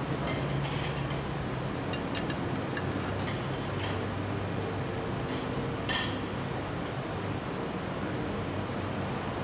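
Knives and forks clinking and scraping against pizza pans, a scattering of sharp clinks with the loudest about six seconds in, over a steady low room hum.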